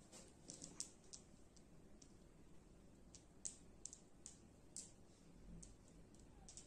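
Flat glass pebbles clicking against one another as they are pushed and regrouped by hand: a dozen or so faint, sharp clicks at uneven intervals, some in quick pairs.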